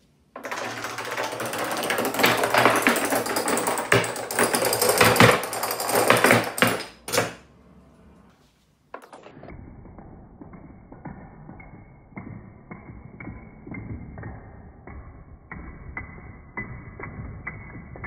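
Steel padlocks toppling one into the next like dominoes, a dense metallic clattering of many knocks. After a brief pause comes a quieter, duller run of separate clicks, about two a second, as a further row of padlocks falls in turn.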